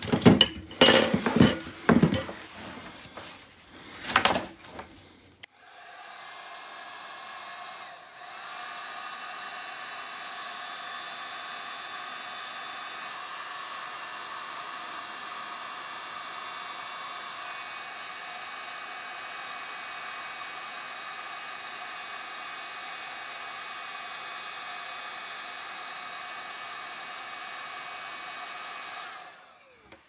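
A few handling knocks and clicks, then an electric heat gun switched on and running steadily: its fan motor gives a steady whine of several tones while it shrinks heat-shrink tubing over a crimped RJ45 connector. It gets a little louder about eight seconds in and switches off near the end.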